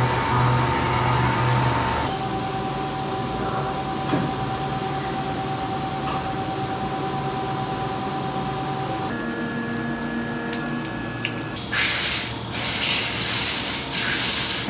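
CNC machine running with a steady hum and whine, then several loud hissing bursts of spray near the end.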